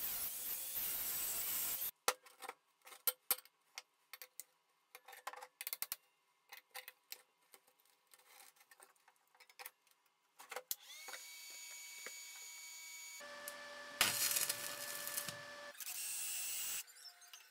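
Abrasive cut-off disc cutting a rusty steel plate for about two seconds and then stopping. Then scattered clinks and knocks of metal parts and locking pliers being handled and clamped. From about two-thirds of the way in, a cordless drill's motor whine starts and grows louder and heavier while the drill bores into the steel plate.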